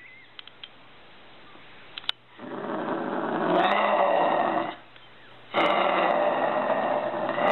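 Grey kangaroo growling twice, two long growls of about two seconds each after a quiet start: the growl a kangaroo gives when disturbed or threatened.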